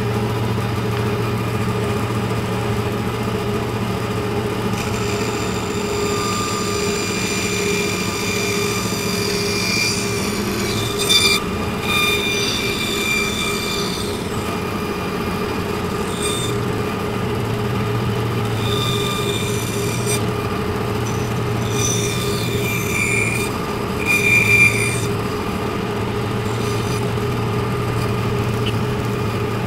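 Vertical bandsaw running with a steady motor hum while its blade makes a series of short cuts into plywood. Each cut adds a high-pitched whine that comes and goes, loudest about eleven seconds in and again a few seconds before the end.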